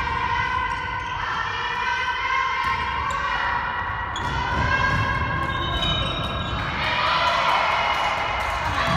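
A ball bouncing and thumping on a sports-hall floor as players run, with the echo of a large hall. Behind it, sustained tones shift in pitch every second or two, like music.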